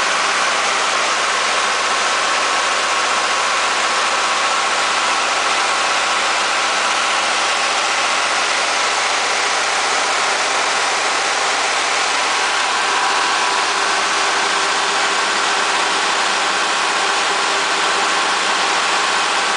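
The Cummins 6CTA8.3-G2 turbocharged, aftercooled six-cylinder diesel of a Cummins/Onan 150 kW standby generator set, running steadily at constant governed speed.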